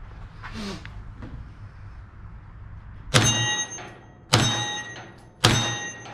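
Three shots from a short AR-style rifle about a second apart, starting about three seconds in, each followed by a brief metallic ring as the shots strike the steel plate targets.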